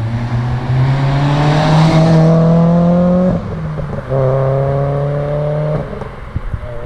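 Renault Clio 197's 2.0-litre four-cylinder engine, on a decat exhaust, accelerating hard past and away. The note rises through one gear, drops sharply at a gear change about three seconds in, rises again through the next gear, then falls away near the end with a few short crackles.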